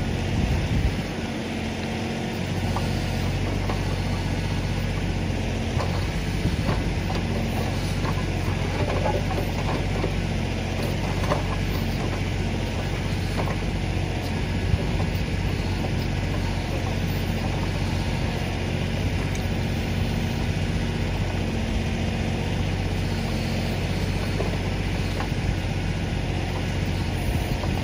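Kioti DK4510 tractor's four-cylinder diesel engine running steadily under work, with a few light knocks scattered through.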